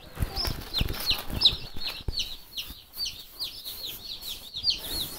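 Day-old Freedom Ranger meat chicks peeping: a steady chorus of short, high, falling peeps, several a second. A few low thumps come in the first two seconds.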